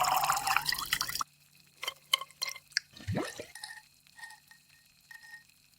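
AI-generated sound effects for a drink in a cup. A pouring, fizzing liquid sound cuts off about a second in, followed by scattered drips, light glassy clinks and a straw being turned.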